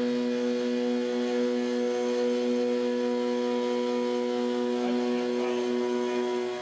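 Carbide two-flute half-inch end mill on an MR-1 CNC gantry mill spinning at 8000 RPM, taking a deep, wide traditional side-milling cut in 6061 aluminium under flood coolant. It makes a steady, pitched humming whine with a ladder of overtones, a sign of a stable cut without chatter.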